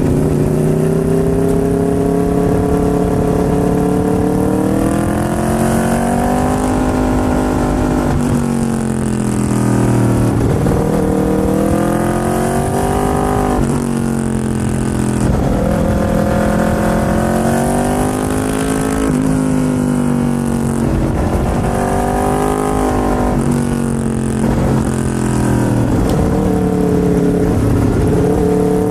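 Aprilia RSV4's V4 engine pulling hard through the gears. Its note climbs over a few seconds and then drops sharply at each upshift, again and again.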